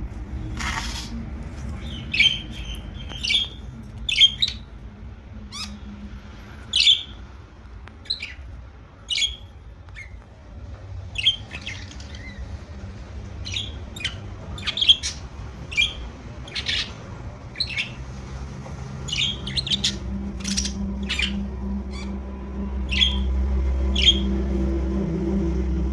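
Pet budgerigars chirping and squawking in short, sharp calls, roughly one a second, over a low steady hum that grows louder near the end.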